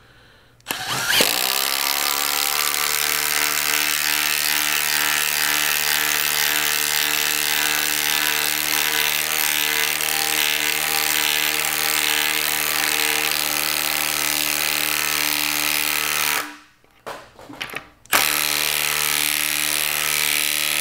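Milwaukee cordless impact driver hammering a half-inch lag screw into wood through a 3/4 inch impact socket, the motor spinning up about a second in and then running steadily. It stops briefly about three seconds before the end, then hammers again as the screw is driven home.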